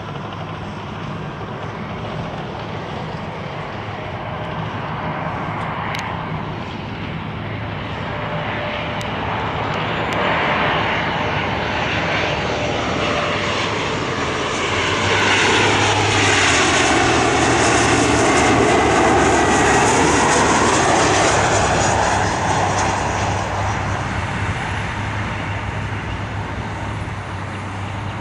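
Jet airliner's engines passing by: the sound swells to its loudest a little past halfway, then fades, with a sweeping whoosh as it goes past. A steady low hum runs underneath.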